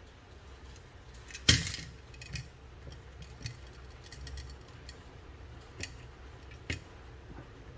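Horseshoe bicycle frame lock and its metal mounting brackets being handled, giving scattered small metal clicks and clinks with the keys in the lock jangling. One sharp metal clack rings briefly about one and a half seconds in.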